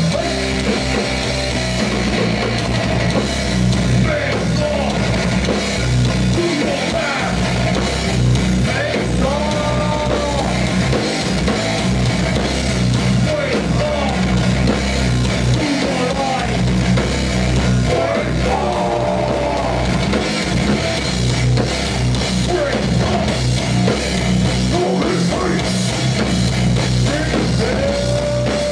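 Hardcore band playing live at full volume: heavy distorted electric guitars, bass and a pounding drum kit, with bending guitar notes now and then.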